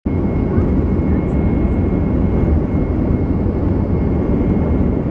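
Jet airliner's engines heard from inside the cabin while taxiing: a steady low rumble with a thin, steady high whine.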